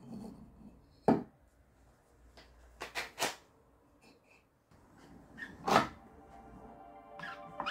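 A few sharp wooden knocks as a white cedar block is set down on the workbench and clamped in place, with the loudest knock about three-quarters of the way through.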